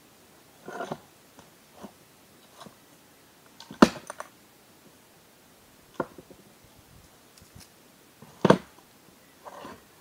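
Stones knocking together as they are set by hand into a dry-stone wall: three sharp clacks, the loudest a little before the middle, with softer scraping and rustling of stone and dry brush between.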